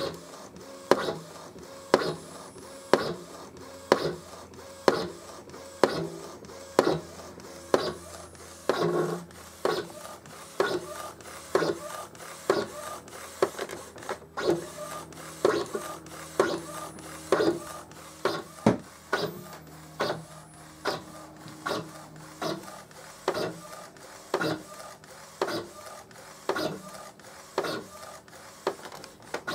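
Epson Stylus Photo R1900 inkjet printer, converted for direct-to-garment printing, printing onto a T-shirt: the print-head carriage motor whirs as the head shuttles back and forth, with a sharp click about once a second on each pass.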